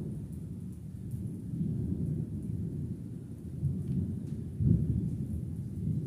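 Thunder rumbling low and continuously, rising and falling in strength, with a louder swell about three-quarters of the way through.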